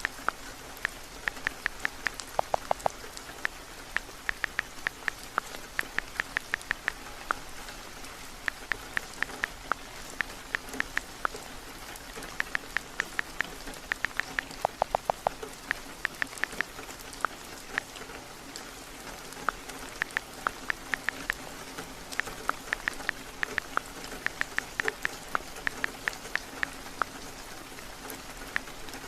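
Steady rain, with runs of quick light clicks from typing on a phone's touchscreen keyboard, several taps a second with short pauses between runs. Twice a lower-pitched run of clicks breaks in.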